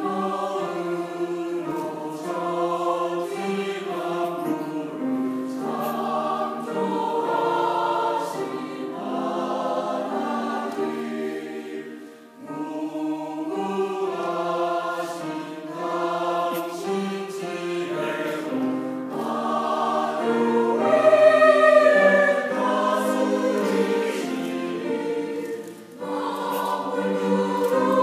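Mixed church choir of women's and men's voices singing a Korean hymn, phrase by phrase, with short pauses between phrases about twelve seconds in and again near the end.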